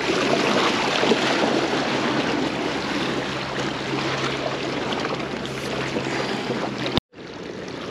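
Sea water washing and splashing against shore rocks, mixed with wind on the microphone, as a steady rush. It cuts out abruptly for a moment about seven seconds in, then comes back quieter.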